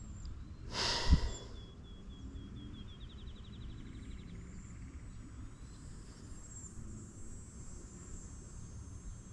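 A hiker's heavy, hissing breath out about a second in, then a high, thin trill of quick ticks that speeds up before stopping. Quiet outdoor background throughout.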